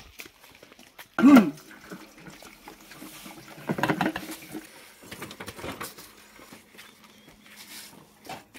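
Petrol trickling from a plastic bottle into a motorcycle's fuel tank, with two short, loud voice-like calls, one about a second in and another around four seconds in.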